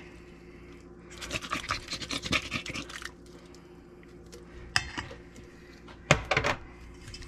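A spatula scraping crushed pineapple out of a tin can into a stainless steel mixing bowl: a run of quick scratchy scrapes starting about a second in and lasting about two seconds. A few sharp knocks follow near the end.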